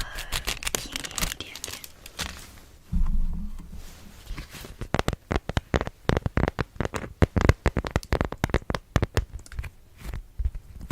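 Close-miked crinkling of wax cloth, with a brief low rub about three seconds in. From about five seconds in come quick, irregular taps, several a second.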